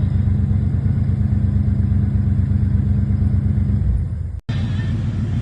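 A steady low droning that is part of a music track stops about four seconds in. After a brief dropout, an engine is heard running steadily.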